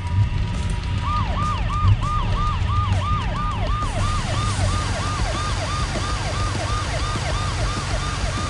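Emergency-vehicle siren in a fast yelp, its pitch sweeping down and back up about two and a half times a second, over a low rumble. It starts about a second in, after a short steady tone.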